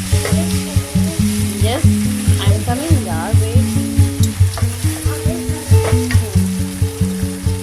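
Onions and tomato puree sizzling in a frying pan as they are stirred, under background music with a steady pulsing beat.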